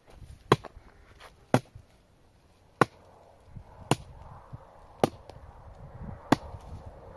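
Six sharp, evenly spaced strikes, about one a second, of a hand tool hitting something hard.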